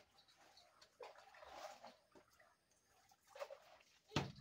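Faint handling sounds of food being prepared: soft scraping and rustling, then a few small knocks and one sharper knock near the end.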